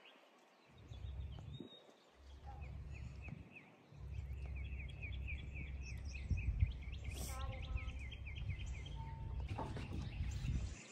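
Wind buffeting the microphone as a low rumble that cuts in and out at first and then holds steady. Behind it a bird sings a fast series of high chirps for several seconds.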